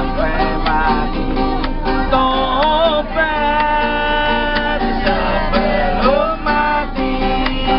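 A busker strumming a small acoustic guitar in a steady rhythm, with a voice singing long, wavering held notes through the middle.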